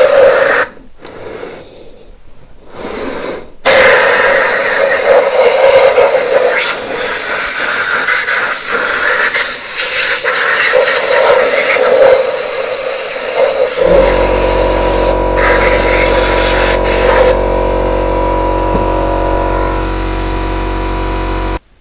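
Compressed-air spray gun blasting thinners over an air-cooled VW cylinder head, a loud steady hiss that drops away briefly about a second in and then resumes, to flush the last abrasive lapping paste out of the head. About two-thirds of the way through, the workshop air compressor starts and runs with a steady low drone under the spray.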